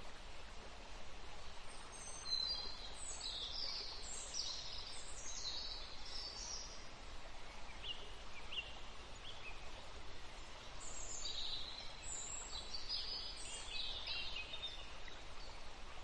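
Small captive finches chirping in two short bouts of quick, high twittering phrases, over a steady background hiss.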